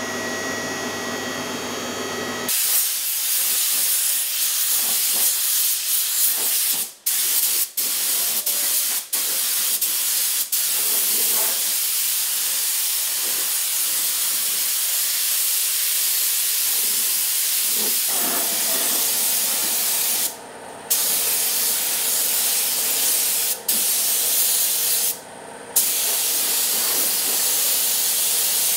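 Compressed-air gravity-feed paint spray gun spraying: a loud steady hiss of atomising air that breaks off for a moment several times as the trigger is let go and pulled again. It is preceded by about two seconds of a steady machine hum with a whine, and a low hum runs under the hiss in the latter part.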